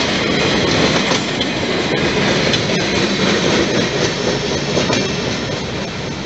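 Freight cars rolling past on the rails: the steady noise of steel wheels on the track, easing off a little near the end as the last car goes by.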